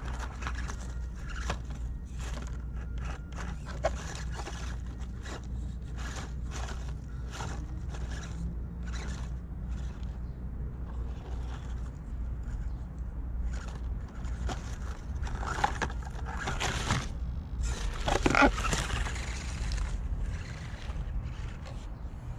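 ECX Barrage 1/24-scale RC crawler truck working over rocks and dry leaves: a string of small clicks, knocks and scrapes over a steady low rumble, with a louder, denser stretch of scraping and crunching about eighteen seconds in.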